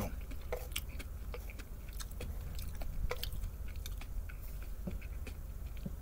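A person chewing a mouthful of pan-fried vegetable gyoza with bean sprouts, making many small irregular mouth clicks over a steady low rumble.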